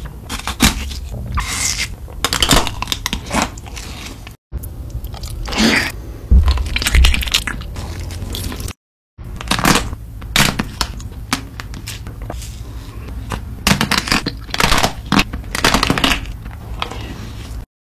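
Close-miked bites and crunching into hard, frozen, coated ice cream bars, with chewing between the bites. For a few seconds in the middle the sound is chewing of noodles and luncheon meat. The sound breaks off briefly at each cut between clips.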